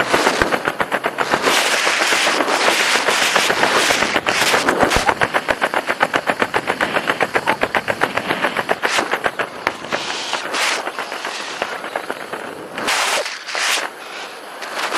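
Wind buffeting the camera microphone in wingsuit flight, a loud rushing with a rapid, even fluttering many times a second. In the last few seconds it eases into irregular gusts.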